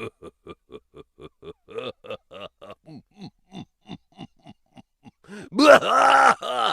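Cartoon comedy sound effect: a string of short voice-like pitched pulses, each swooping up and down, about four a second, then a louder, fuller burst of the same kind near the end.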